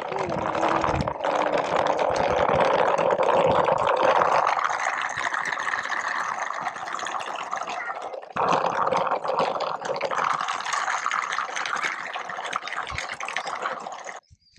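Small wheels rolling and rattling over a gravel path: a child's bicycle on training wheels towing a small plastic toy wagon. The noise drops out briefly about eight seconds in, then carries on until it stops abruptly near the end.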